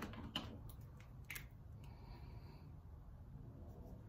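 Faint, scattered clicks and ticks of a wire being handled at an electrical control panel, bunched in the first second and a half, over a low steady hum.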